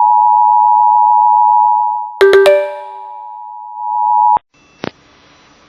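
EAS attention signal: the two-tone alert tone (853 and 960 Hz) sounding loud and steady. About two seconds in, a few sharp ringing strikes cut across it and the tone drops in level. It then swells back and cuts off suddenly, leaving faint hiss with a single click.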